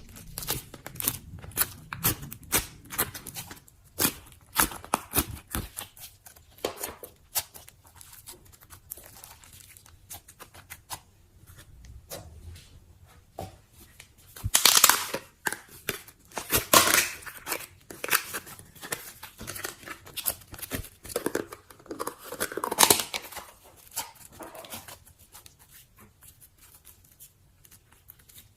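Slime being poked and pulled by hand, making a dense run of sticky clicks and crackles, with louder bursts about fifteen, seventeen and twenty-three seconds in.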